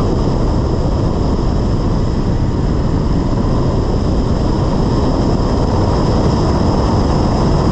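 Steady rush of wind and road noise from a car driving at speed through an autocross course, with low wind rumble on an outside-mounted camera's microphone and no clear engine note above it.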